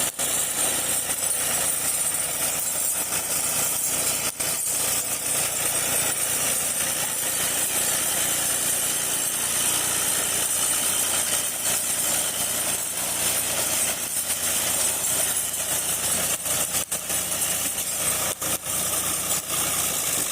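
Farm machinery engine running steadily at an even pace, with a strong steady hiss over the engine hum.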